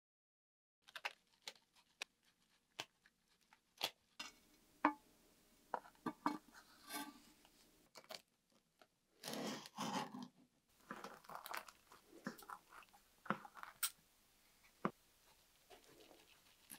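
Crunching and scraping of a knife cutting through a baked pizza crust on a wooden board, most steadily about nine to ten seconds in, among scattered clicks and taps of hands handling the toppings.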